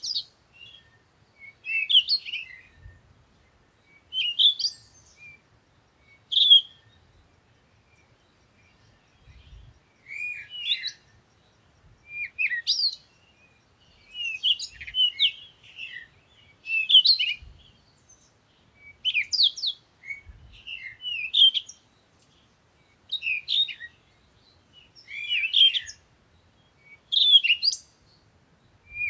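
Small songbird chirping in short, quick twittering phrases, one every second or two, with brief gaps between them.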